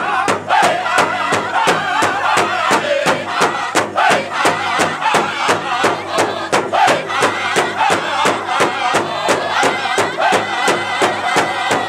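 A powwow drum group singing together in loud, high voices while beating a large shared bass drum in unison, a steady beat of about three to four strokes a second.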